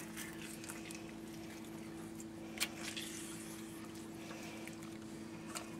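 Faint wet squeezing and handling of a lemon half pressed over raw chicken skin, with a few small ticks and one sharper click about two and a half seconds in, over a steady low hum.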